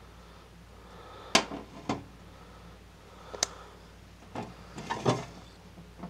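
A Case slip-joint pocketknife with jigged Delrin handles and brass bolsters being handled and set down on a hard tabletop. There are about five separate sharp clicks and knocks, the loudest about a second and a half in.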